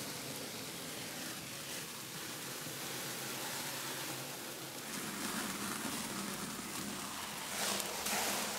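Hay fire crackling and hissing under a wire grill basket of pork belly sizzling in the intense heat. Steady, getting briefly louder near the end.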